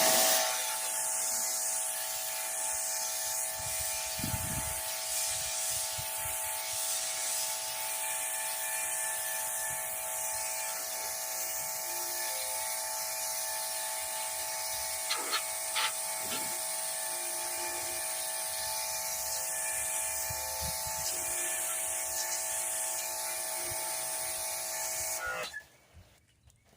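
Craftsman CMEPW2400 electric pressure washer running and spraying water: a steady motor whine with a hiss of spray. It starts suddenly and cuts off suddenly near the end, as the trigger is pulled and then let go, with a couple of short clicks in the middle.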